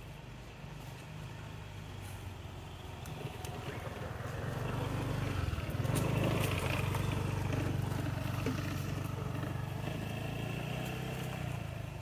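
Engine of a passing vehicle: a low steady hum that grows louder about halfway through and slowly fades near the end.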